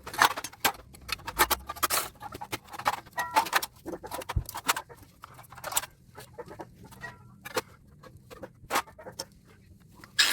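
Irregular clicks, clinks and knocks of hand tools working on metal parts of an air-conditioner condenser, several a second with short pauses.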